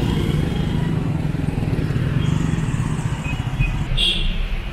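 Street traffic noise: the steady low running of motorbikes, scooters and cars, with a brief high squeak about four seconds in.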